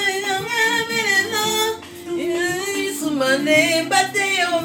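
Music with a woman singing over sustained low instrumental notes, with a brief break about two seconds in.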